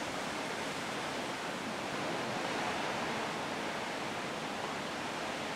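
Steady rushing noise of the open sea and wind seen from a ship's balcony, an even hiss with no separate wave breaks standing out.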